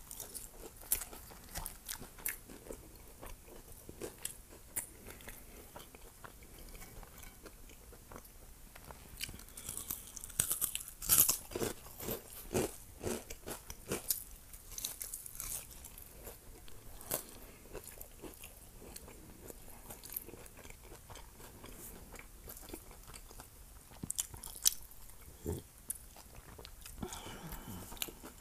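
Chewing and crunching of a burrito coated in crushed hot Cheetos: crisp crunches and wet mouth clicks, with a loud run of crunchy bites around the middle.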